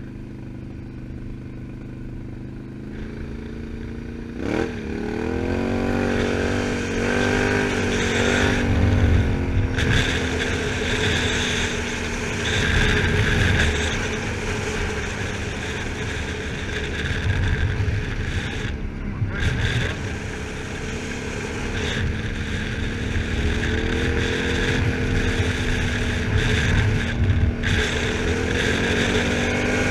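Can-Am Outlander 1000 XT-P ATV's V-twin engine running under way. It rises in pitch and gets louder about four seconds in as it speeds up, then rises and falls with the throttle, picking up again near the end. Wind and tyre noise from the gravel road run steadily underneath.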